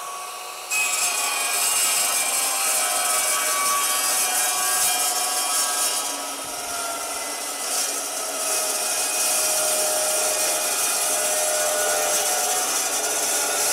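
Evolution RAGE2 355 mm tungsten-carbide-tipped chop saw cutting through a steel I-beam. The motor is already spinning, and about a second in the blade bites into the steel. From then on there is a loud, steady cutting noise with a wavering high whine, easing slightly for a moment around the middle. The blade cuts the steel rather than grinding through it as an abrasive disc would.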